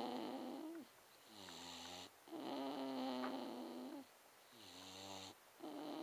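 Staffordshire Bull Terrier snoring in his sleep, a steady rhythm of breaths: a louder snore alternating with a quieter, lower-pitched one, each cycle lasting about two and a half seconds.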